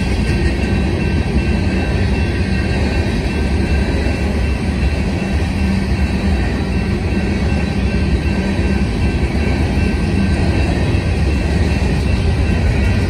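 Empty covered hopper cars of a freight train rolling past on steel wheels. It is a steady, loud rumble of wheels on rail.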